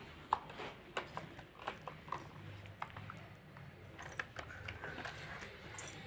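Faint, scattered clicks and taps of a toddler handling toys, a plastic toy car among them.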